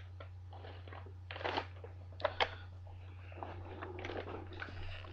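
Scattered clicks, knocks and rustles of a Hoover Convertible upright vacuum being handled and moved about, over a steady low hum.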